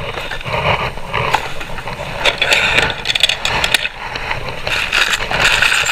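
Bags of cabinet assembly hardware being handled: plastic crinkling, with irregular clicks and clinks of small parts.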